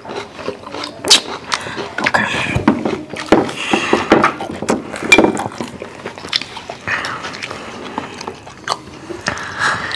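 Close-miked chewing and mouth sounds of people eating, with many short clicks and clinks of forks on ceramic plates.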